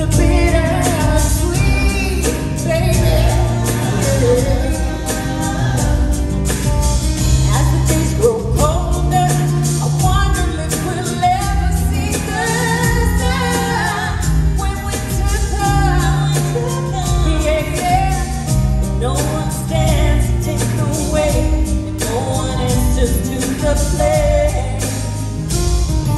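Live pop-rock band music with a woman singing, her voice gliding up and down over steady drums and bass.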